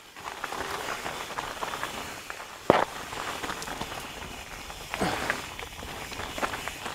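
Mountain bike on a dirt trail: tyres crunching over loose dirt and rock with a steady rattle and clicks, and a few sharp knocks, the loudest about two and a half seconds in.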